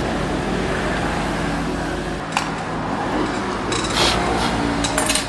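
A steady fan-like whir over a low electrical hum. A sharp click comes a little over two seconds in, followed by a few clicks and rattles of tools or parts being handled in the second half.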